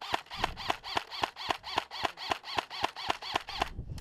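M4-style airsoft electric rifle (AEG) firing a rapid string of about fourteen semi-automatic shots, nearly four a second, each a sharp snap with a brief whine from the gearbox motor, stopping shortly before the end.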